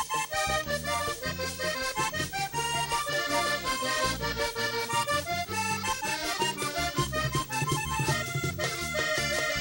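Vallenato instrumental interlude: several diatonic button accordions play a melody together over a steady bass line and regular percussion beats.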